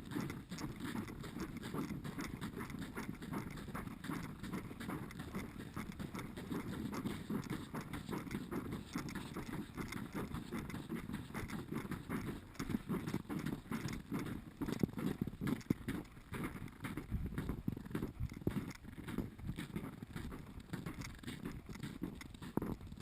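Footsteps crunching through snow, one step after another at a walking pace.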